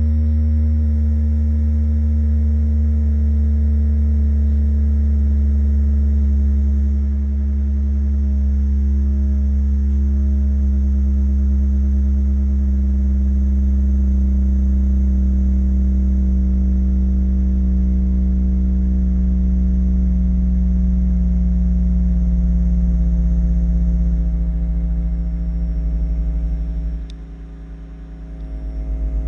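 Deep bass test tones for a speaker test: a steady low hum with a higher tone slowly gliding down in pitch. Near the end the sound drops away briefly, then comes back pulsing.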